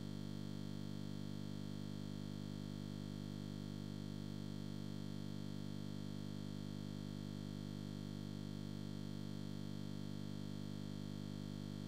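A steady held synthesizer chord, a single unchanging electronic drone with several notes sounding together and no rhythm or movement.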